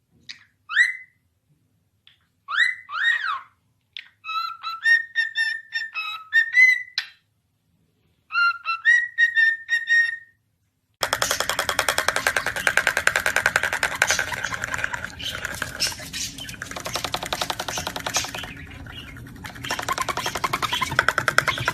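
A parrot whistling a run of short, clear phrases with rising and falling glides, with pauses between them. About eleven seconds in, music with a fast pulsing beat starts and carries on.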